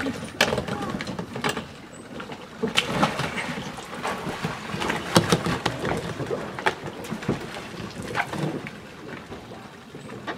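Water splashing and sloshing as a swimmer hauls himself out of the water onto a Feelfree sit-on-top plastic kayak, with irregular knocks and bumps against the hull.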